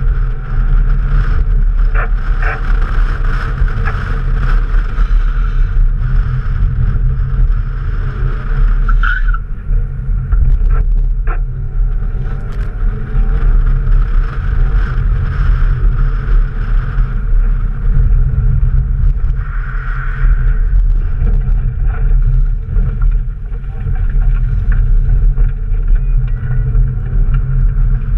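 Toyota Corolla driving on a track, heard from a camera mounted outside the driver's door. Steady engine and road noise sits under heavy wind rumble on the microphone, with a few sharp ticks in the first half.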